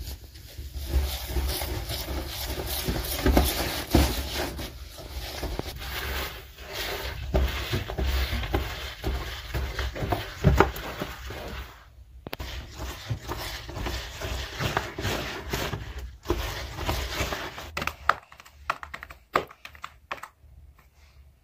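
Rustling, scraping and crackling at a wood-fired clay tandoor as its hot inside is worked over with a cloth, over a steady low rumble. The sound breaks off briefly twice, and near the end it thins to a few soft clicks and knocks.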